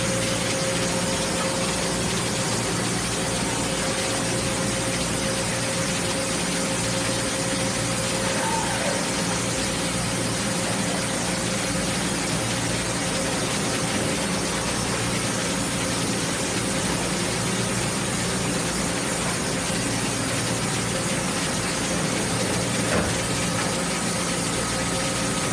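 Kitamura Bridgecenter-8G CNC bridge mill running: a steady machine hum with a constant tone over a hiss, and a faint click near the end.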